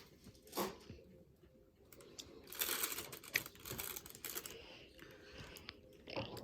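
Plastic piping bag crinkling and rustling as icing is spooned into it, with a few light clicks.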